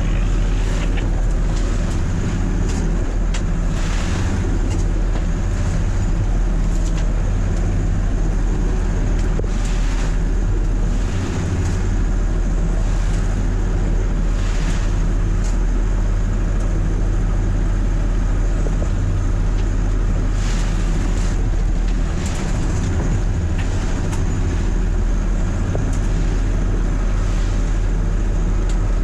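Perkins T6.3544M turbocharged six-cylinder marine diesel running steadily under way, heard from inside the wheelhouse. Several times the bow slams into waves and spray crashes against the hull and windscreen.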